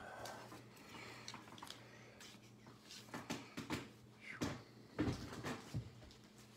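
Scattered light knocks and clicks, like things being handled or set down, over a faint steady low hum.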